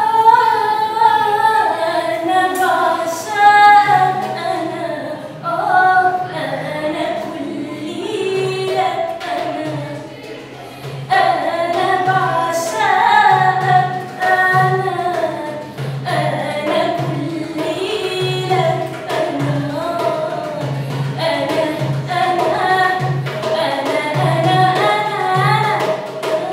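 A young woman singing a solo melody, her voice gliding and holding notes, over a steady low beat about once a second.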